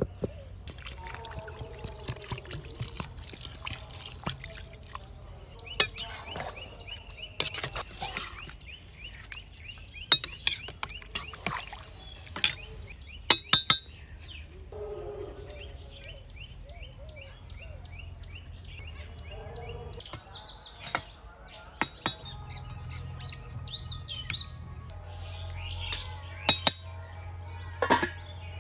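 Rice being stirred by hand and tipped into a steel pot of simmering chicken stock, with several sharp clinks of steel cookware. Birds chirp in the background, and a steel lid clinks onto the pot near the end.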